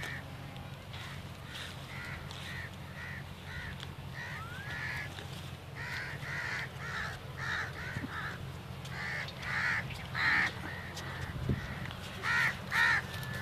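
Crows cawing over and over in short calls, the loudest about ten seconds in and two close together near the end, over a steady low hum.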